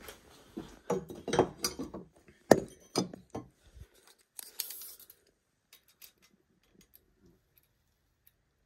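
Handling noise of a camera and a tape measure being moved about: a run of knocks and clicks for the first few seconds, a short scraping hiss about four and a half seconds in, then a few faint ticks.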